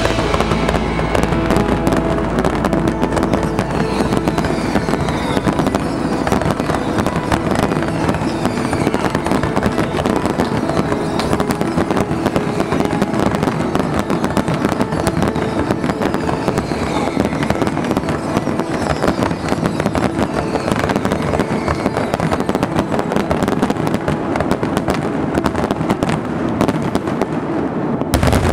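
Aerial fireworks shells bursting in a rapid, continuous barrage with dense crackling, and short falling whistles every second or two.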